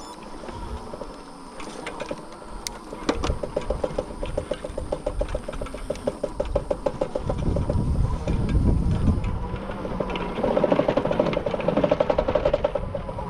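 E-bike riding over rough, rutted sand, its frame rattling, with two stretches of rapid, even clicking. Wind rumbles on the microphone, getting stronger partway through.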